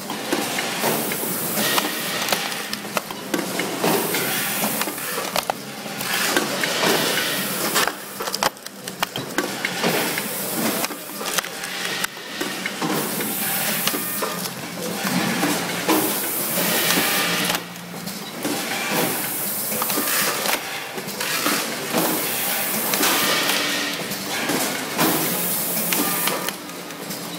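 Candy-packaging line running: a multihead-weigher filling station, a conveyor and a labeling machine together make a dense mechanical clatter of clicks and knocks over a steady hiss.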